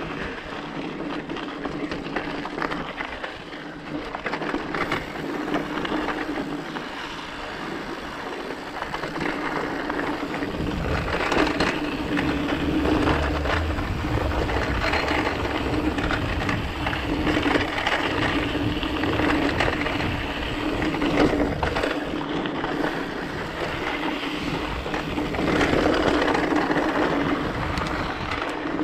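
Mountain bike on 2.10-inch knobby tyres riding over rocky, sandy trail: a steady rolling noise with constant crunching, clicks and rattles from the tyres and bike over stones. A low rumble comes in about ten seconds in.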